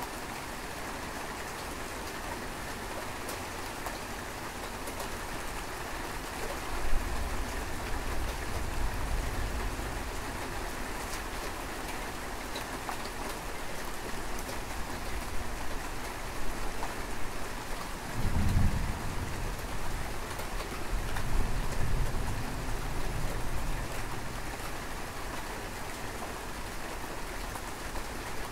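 Steady rain falling on surfaces, with rolls of thunder: a low rumble about a quarter of the way in, and a longer one past the middle that swells twice.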